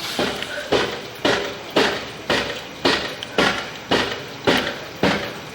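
Steady pounding: about ten evenly spaced strikes, roughly two a second, each sharp and quickly fading.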